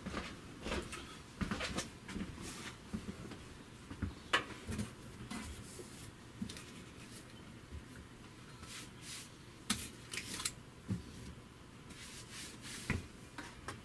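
Scattered light clicks, taps and rustles of hands handling the braided supply lines and brass fittings under a tankless electric water heater, checking the connections for leaks. A faint steady low hum runs underneath.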